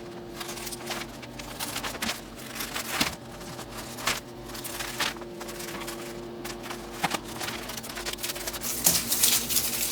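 Paper mounting template being trimmed and handled: crinkling paper with scattered light clicks.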